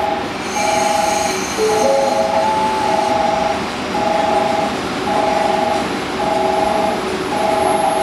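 A two-tone electronic warning tone pulsing about once a second, the station's train-approach alarm, over the steady rumble of an EF81 electric locomotive and its sleeper train rolling slowly into the platform.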